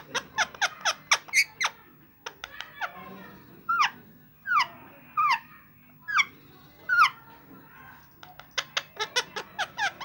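Rose-ringed (Indian ringneck) parakeets chirping and squeaking. Quick runs of short high chirps come near the start and again near the end, and in the middle there are about five louder calls that slide down in pitch.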